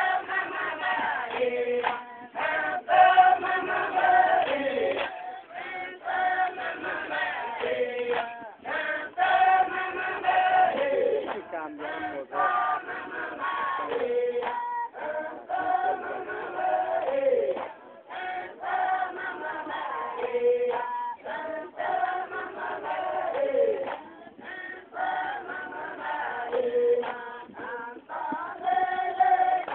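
Ngäbe Mama Tadta congregation singing in chorus, men's and women's voices together in a repeating chant-like melody, the same phrase coming round about every six seconds.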